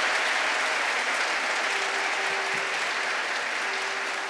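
Concert audience applauding, a dense clatter of many hands that slowly dies down toward the end.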